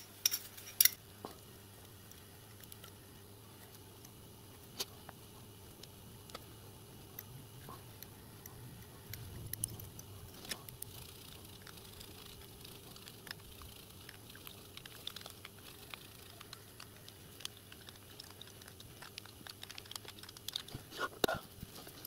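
Faint, scattered clicks and light metallic ticks of small brass pump parts and screws being handled and fitted together by hand, with a quick cluster of clicks near the end.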